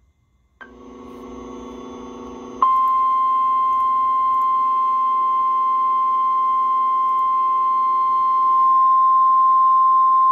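NOAA Weather Radio alert tone: one loud, steady, single-pitched tone near 1050 Hz that starts about two and a half seconds in and holds. It is the attention signal that comes before a weather warning is read. Before it there is a short quiet and then a fainter hum of several low steady tones that grows louder.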